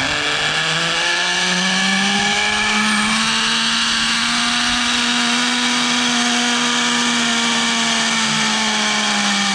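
Zipline trolley pulleys running fast along the steel cable: a loud, steady whine that climbs in pitch over the first couple of seconds, holds, and eases down slightly near the end, over a steady rush of wind.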